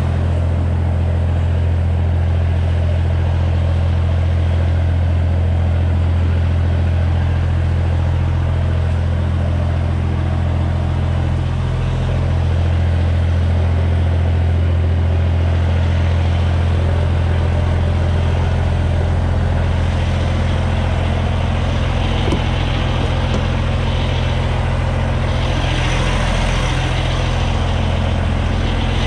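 Semi truck's diesel engine running steadily with a constant low drone, with more hiss coming in over the last several seconds.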